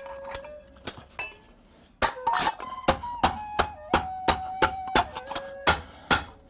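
A hand-forged metal bell being hammered on a steel anvil bar, about three to four blows a second from about two seconds in. Each blow sets the bell ringing briefly, its pitch shifting from blow to blow as the smith works it to find its tone. Before the hammering, a faint ring dies away and there are a few light clicks.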